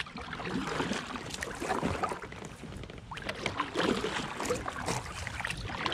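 Kayak paddle dipping into calm river water, making irregular small splashes and drips.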